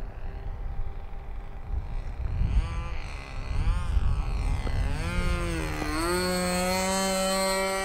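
Small gasoline engine of a radio-controlled model airplane flying past. Its pitch swoops up and down as the plane comes close, then holds a steady high drone from about six seconds in.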